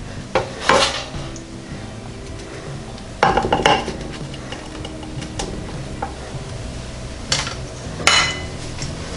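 A spatula scraping across a dark nonstick baking pan and clacking against a glass baking dish as baked cookies are lifted off and moved. There are about six separate scrapes and knocks, with the longest clatter a little over three seconds in, and a sharp clack near the end as the spatula is put down.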